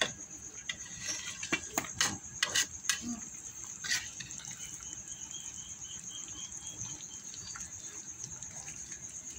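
A handful of sharp clicks and knocks, a metal spatula against the wok, in the first four seconds. Then a steady hiss as the thick spiced tomato-chilli sauce simmers in the wok.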